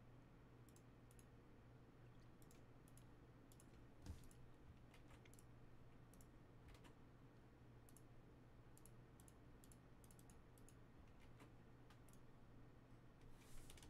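Near silence with faint, irregular clicks of typing on a computer keyboard, over a low steady hum.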